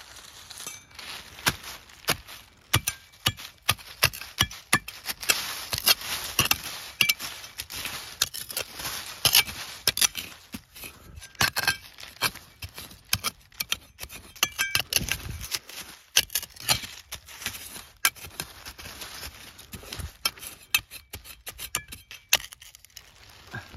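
Metal hand trowel digging into soil and dry leaf litter: irregular sharp scrapes and clinks as the blade works into the ground and strikes stone.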